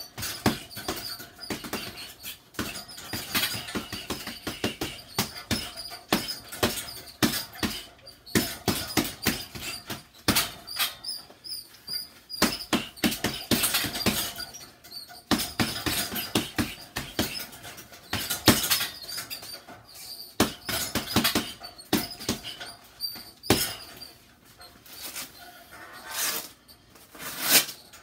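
Boxing gloves hitting a hanging heavy bag in fast combinations, several sharp thuds a second, with high squeaking from the swinging bag and its stand. The punches thin out over the last few seconds.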